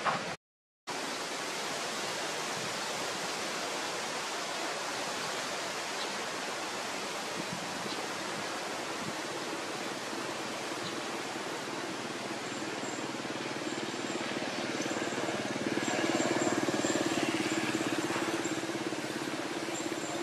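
Steady outdoor background hiss, cut off for half a second just after the start. A low hum swells from about 14 seconds in and fades near the end, with faint high chirps over the second half.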